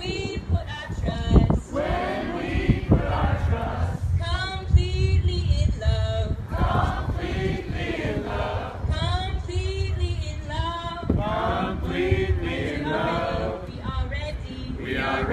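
A group of men and women singing a protest song together, led by a song leader.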